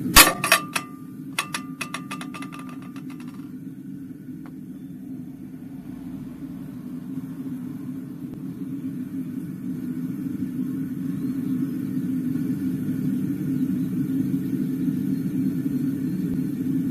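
A metal piece dropped into a cast-iron pan: a sharp clang, a few knocks, then quick ringing rattles for about three seconds as it rocks and settles. A steady low rumble runs underneath throughout.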